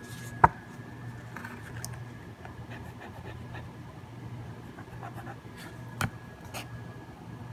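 Small handling sounds of pens and packaging: a sharp click about half a second in, another about six seconds in, and faint ticks over a low steady hum.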